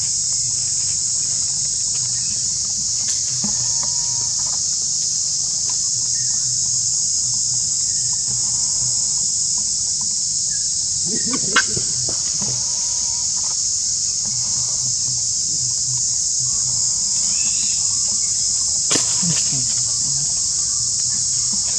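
Steady high-pitched chorus of insects, with two brief sharper sounds standing out, one about eleven seconds in and one near nineteen seconds.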